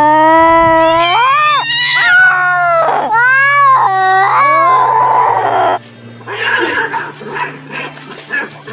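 A tabby cat gives a series of loud, long meows that rise and fall in pitch for about six seconds. Then comes a quieter stretch of rough, scrappy noise as two cats wrestle.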